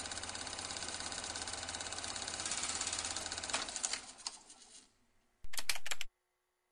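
Sound effect for an animated logo: a fast, even mechanical clicking rattle, like rapid typing, that fades out about four to five seconds in. It is followed by a short, loud hit of about half a second that cuts off suddenly.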